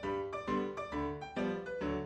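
Background music: a light piano tune played as a steady run of notes, about four a second.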